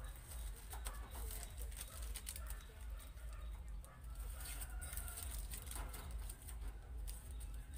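Faint, irregular bird calls over a steady low hum.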